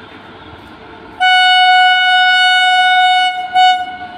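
Horn of a WAP-7 electric locomotive: one long single-tone blast of about two seconds starting about a second in, then a short second blast.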